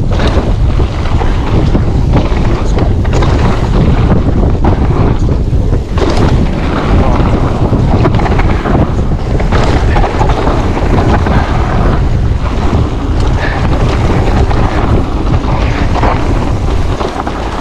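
Strong wind buffeting on the microphone during a fast e-mountain-bike ride, with a dense rumble and many short knocks and rattles from the bike over rough trail.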